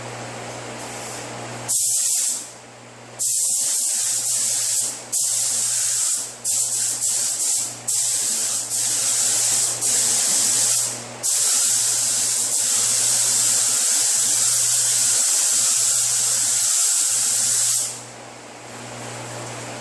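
Automotive paint spray gun spraying base coat in short and long passes, a high hiss that starts and stops with each trigger pull, ending in one long pass of about six seconds. A steady low hum runs underneath.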